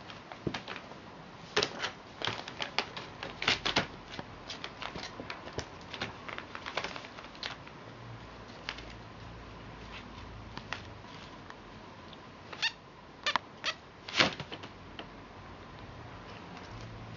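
Kittens scrambling in a brown paper bag: the paper crinkles and crackles in irregular clusters of sharp rustles, with a few louder crackles near the end.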